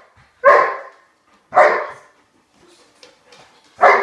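A Doberman barking: three loud single barks, about half a second in, a second after that, and again near the end.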